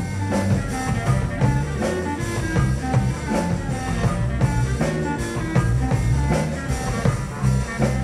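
Band music with a drum kit keeping a steady beat under bass and melodic instrument lines.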